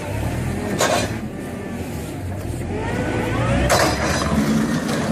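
Heavy construction machine's engine running steadily, with two sharp metallic clanks, one about a second in and one near four seconds.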